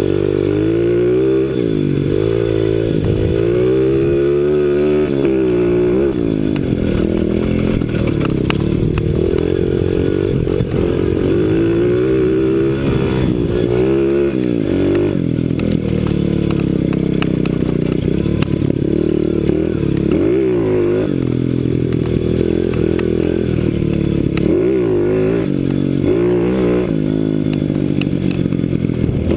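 CRZ 125 Pro pit bike engine under riding load, its pitch climbing and falling over and over as the throttle is worked, with several sudden drops in pitch.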